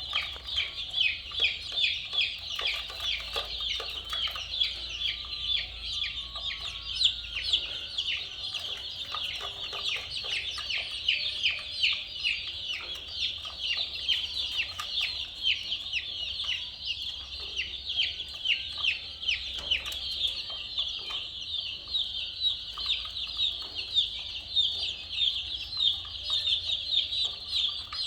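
A flock of baby chicks peeping without pause: many overlapping short, high-pitched chirps, each falling in pitch.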